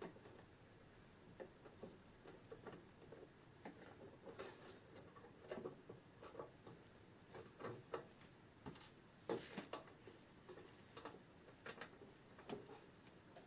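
Faint, irregular small metallic clicks and light scraping of a hand tool working at a little nut and bolt on an old clock's works, the nut not yet coming loose.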